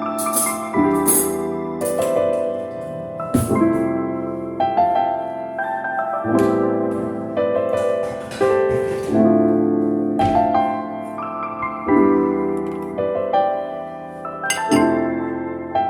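Background music: a soft piano piece with held chords that change about every second or two.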